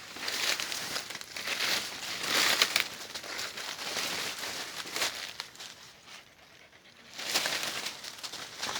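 Dry leaves and brush crackling and rustling as someone walks and pushes through dense undergrowth, in irregular surges with a short lull about six seconds in.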